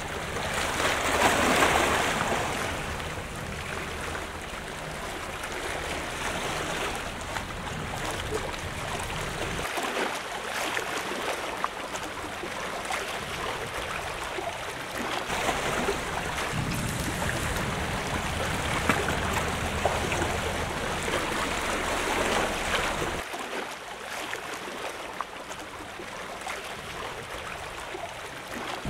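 Sea waves washing and lapping against a seawall, with a louder surge about two seconds in. A low wind rumble on the microphone comes and goes.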